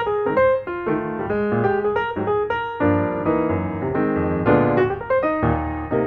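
Background piano music: a quick run of notes over chords at a steady, lively pace.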